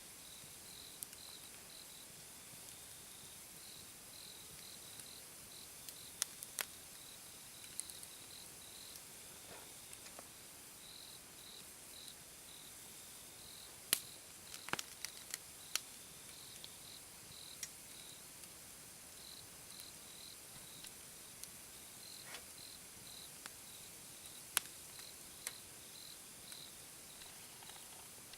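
Wood campfire crackling with irregular sharp pops, over a steady background of insects chirping in short, high-pitched pulses.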